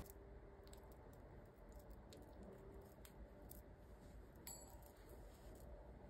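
Near silence: quiet room tone with a few faint, scattered small clicks.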